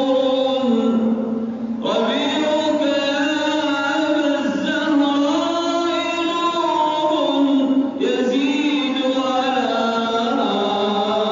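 A man's voice singing an Arabic madih, an Islamic praise song, in long drawn-out phrases of held notes that slide between pitches. There are short breaks between phrases about two seconds in and about eight seconds in.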